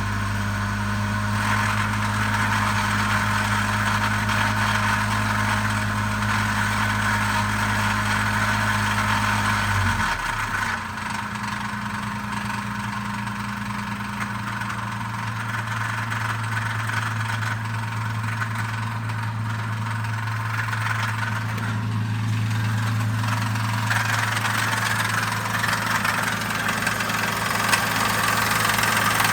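Engine idling steadily with a noise that the owner asks may be engine knock. About ten seconds in, the deepest part of the hum drops away and the idle settles on a slightly different note.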